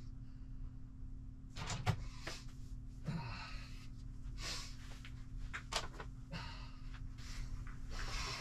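Intermittent scraping and rustling with a sharp click about two seconds in, from small hard plastic parts and hand tools being handled and worked, over a faint steady hum.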